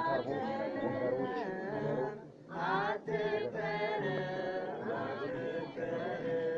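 Unaccompanied singing of a devotional song, with long held notes that bend and waver in pitch, and a short break for breath about two and a half seconds in.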